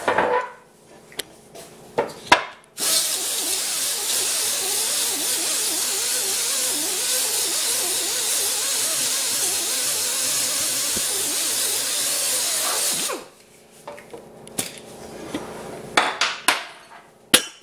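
Small air-powered 2-inch Roloc disc sander running, a steady high hiss as the disc sands down body filler (stopper); it starts about three seconds in and cuts off suddenly about ten seconds later. A few light knocks and clicks of the tool being handled come before and after.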